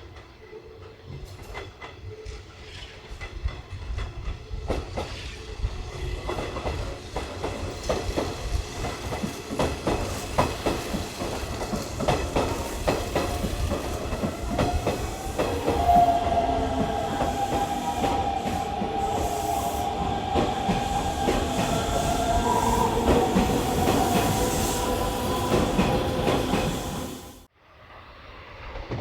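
Hanshin electric train running through a station, wheels clattering over rail joints and growing louder. A steady whine sounds through the middle part, and the sound cuts off abruptly near the end.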